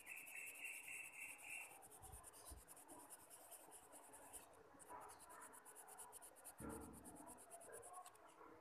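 Colored pencil scratching faintly on paper in quick, repeated shading strokes.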